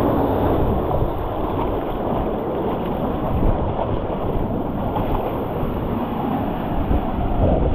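Water rushing and churning through a water slide's run-out channel, a steady noise with heavy buffeting on an action camera's microphone.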